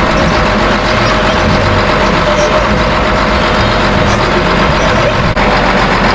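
Heavy vehicle engines running steadily, loud and continuous, with a brief break about five seconds in.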